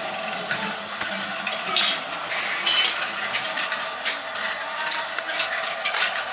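Lego Duplo battery train running on plastic track, its small motor whirring steadily with irregular light clicks and clatters as it rolls along.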